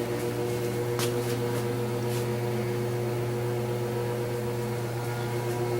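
Steady mechanical hum with a few faint ticks.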